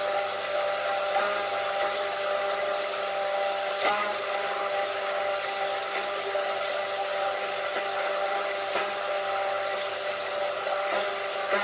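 Electric kitchen blender motor running at one steady speed: a whine held level over a whirring hiss. A few brief knocks sound over it, one about four seconds in and one near the end.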